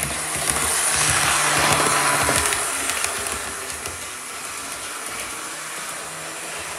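Model diesel locomotive running on the layout's track, its motor humming and wheels rolling on the rails. The sound is loudest about one to two and a half seconds in, then fades to a lower steady rumble as the locomotive moves off.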